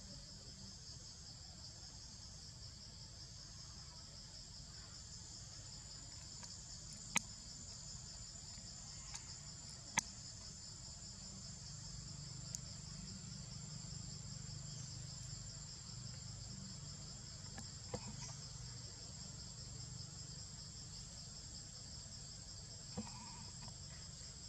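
Steady chorus of insects: a rapid pulsing buzz under a continuous high whine, with a handful of sharp clicks scattered through, the loudest about ten seconds in.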